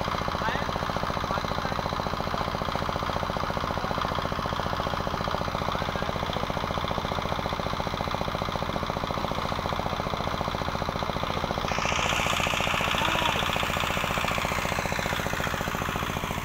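Engine of a portable concrete mixer running steadily, with a fast even chugging beat. A higher hiss joins about twelve seconds in.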